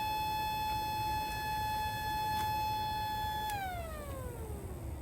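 Small 12-port model tornado siren holding one steady tone, then winding down in a smooth falling pitch from about three and a half seconds in as it is switched off.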